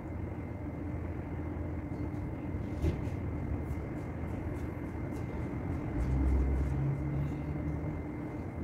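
Steady mechanical hum with a constant thin whine: the pool's pump running while the pool floor is vacuumed. A click comes about three seconds in, and a deeper low rumble swells briefly near the end.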